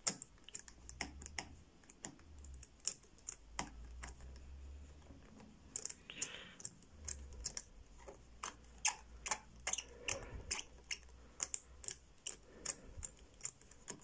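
The number wheels of a four-wheel Zhege combination padlock being spun by hand, ticking through their detents in a run of small, sharp, irregular clicks, a few a second, with a short pause partway through.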